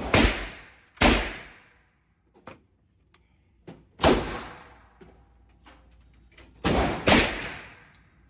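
Gunshots inside an indoor shooting range: five loud reports, each with a ringing echo tail, two about a second apart at the start, one about four seconds in, and two in quick succession near the end.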